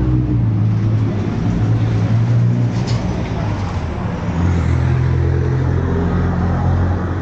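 Street traffic, with a motor vehicle engine running close by as a steady low hum that shifts lower about four seconds in.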